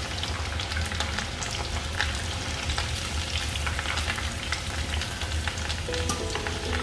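Breaded potato cheese balls deep-frying in hot oil: a steady, dense sizzle with many small pops and crackles from the bubbling oil.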